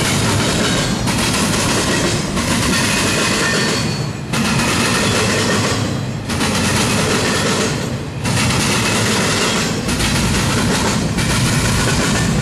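Double-stack intermodal train's container well cars rolling past, steel wheels on the rails making a steady loud rumble that dips briefly every two seconds or so.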